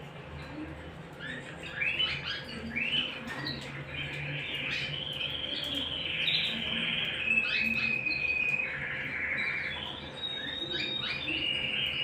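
Domestic canaries singing: quick rolling trills and chirps, broken by a long held whistled note about eight seconds in and another near the end.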